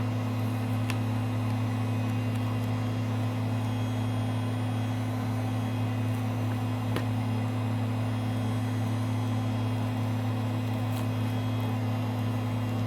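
Steady low electrical hum from a motor or fan, with a few faint clicks.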